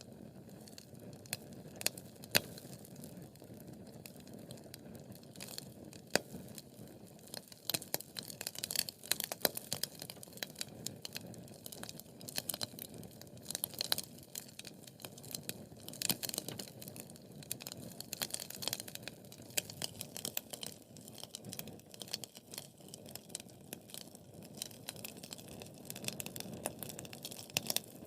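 Wood fire crackling: many irregular sharp pops and snaps from burning logs over a soft steady low rush of the flames.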